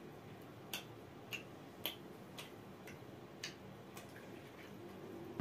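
Faint, irregular wet clicks and lip smacks of people chewing food with their mouths open, a few clicks spaced roughly half a second to a second apart.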